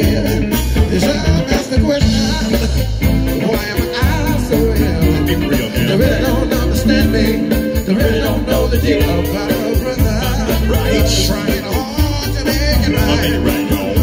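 Live funk cover band playing through a PA system: drum kit keeping a steady beat, bass, electric guitar and keyboards, with a singer's voice over the band.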